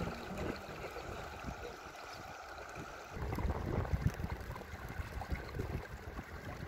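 River ambience: a steady wash of flowing water from a strong current, with wind rumbling on the microphone that grows stronger about three seconds in.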